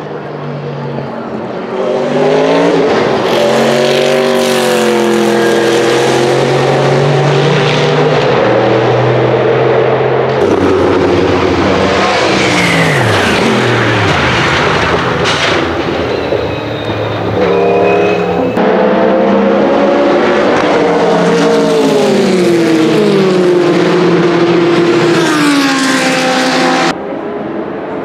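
Sauber Mercedes C11 Group C race car's twin-turbo Mercedes M119 V8 at high revs on track, its note rising and dipping through gear changes. About halfway through it passes close by, and the pitch falls sharply as it goes away.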